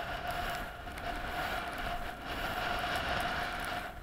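Strong blizzard wind blowing and buffeting the microphone, with a steady thin whistling tone running through it.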